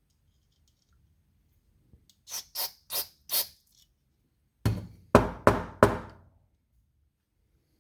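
Short blasts of aerosol carburetor cleaner sprayed into the carburetor's passages: four quick hissing bursts, then four louder, fuller ones about two seconds later.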